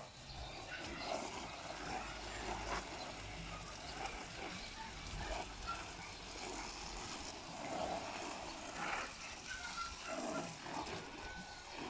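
Water from a garden hose spraying and splashing onto the leaves and potting soil of potted plants, a steady hiss, with brief animal calls in the background.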